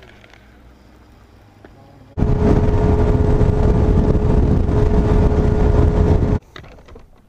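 Bass boat running at speed: a loud rush of outboard motor, water and wind noise with a steady whine, cutting in suddenly about two seconds in and stopping abruptly about a second before the end.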